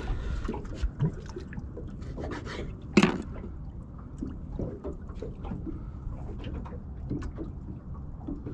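Hands handling bait and a hook at a plastic bait board, making small clicks and rubbing sounds over a low steady wind-and-water rumble, with one sharp knock about three seconds in.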